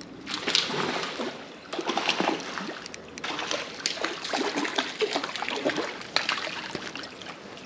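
A hooked rainbow trout thrashing and splashing at the surface of a shallow creek as it is played on a light line, in irregular bursts.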